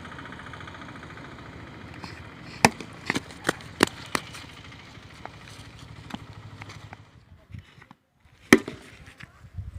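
A hard plastic cricket bat knocking a tennis ball during defensive shots: a quick run of sharp knocks about three seconds in, then one loud crack near the end, over a steady low background rumble.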